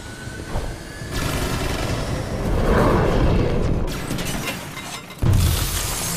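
Action-film sound effects of glass shattering and crashing as the Batpod motorcycle breaks through glass doors, with a sudden loud smash about five seconds in, under orchestral film score.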